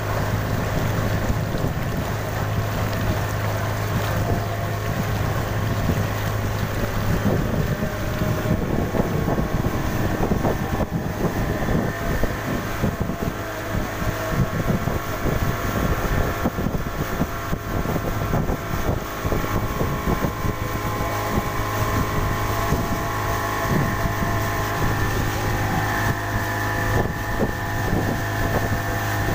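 Speedboat's Yamaha 40 hp outboard motor running steadily under way, with water rushing along the hull and wind buffeting the microphone.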